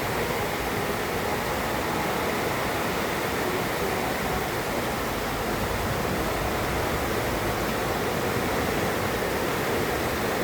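Heavy rain pouring steadily, an even, dense hiss with no thunderclap.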